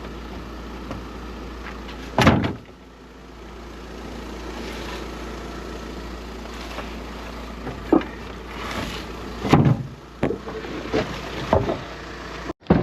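A steady low hum with several knocks and thumps over it, the loudest about two seconds in and a cluster in the second half; the sound cuts off abruptly near the end.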